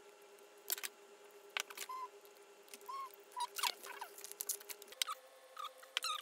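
Hands handling a wooden dowel and a sheet of wet-or-dry sandpaper on a cluttered wooden workbench: a series of small clicks and taps with paper crinkling and a few brief squeaks. Under it runs a faint steady hum that steps up in pitch about five seconds in.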